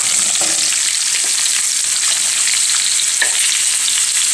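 Hot oil sizzling in a frying pan as diced beetroot is tipped onto mustard seeds, cumin, urad dal and green chillies frying in it, with scattered pops and clicks through the steady hiss.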